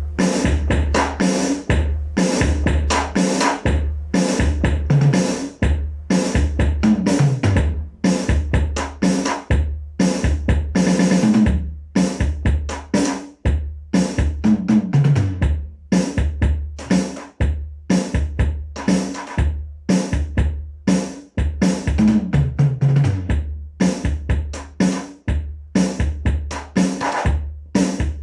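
Electronic drum kit played through a Simmons SDC200 drum amplifier: a steady, loud groove with a heavy kick drum and snare, broken by tom fills that step down in pitch.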